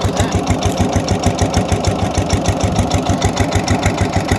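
Old micro tractor's single-cylinder engine running steadily, a fast, even chug of about ten beats a second.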